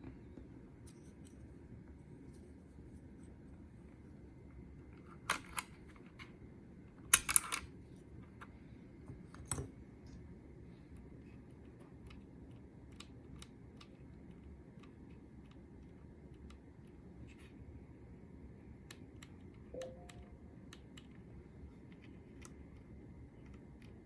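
Keys on an Anne Pro II keyboard being pressed: scattered faint, sharp clicks, with a few louder clicks about five to ten seconds in. This is the clicking the owner reports from the Fn2 key.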